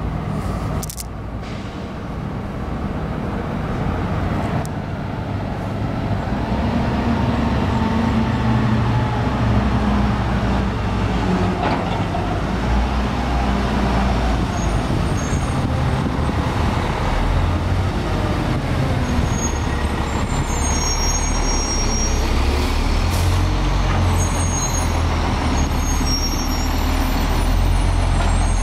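Diesel engine of a 2004 Peterbilt 320 front-loader garbage truck running as it approaches, growing steadily louder. In the last several seconds, short high squeals of its brakes come in as it slows to a stop.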